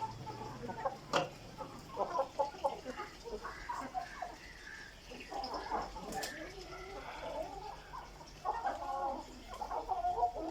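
Gamefowl chickens clucking in short repeated bursts, with a sharp click about a second in.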